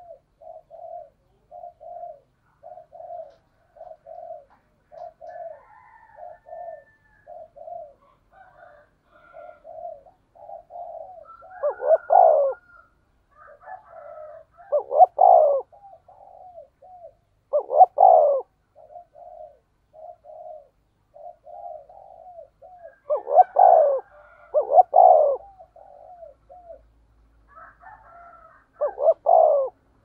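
Spotted dove cooing: a run of short quick coos about two a second, then from about twelve seconds in, louder drawn-out coos every few seconds with short notes between them. This is the deep 'thổ sấm' voice that Vietnamese keepers prize in a decoy dove for drawing in wild doves.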